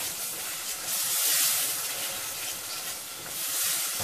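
Tomato sauce sizzling in a stainless-steel saucepan over fried spices, stirred with a silicone spatula: a steady hiss that swells a little about a second in and again near the end.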